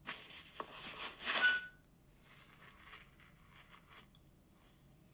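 Telephone line noise while a call is put through: a brief crackle of static, a short single beep about a second and a half in, then faint line hiss.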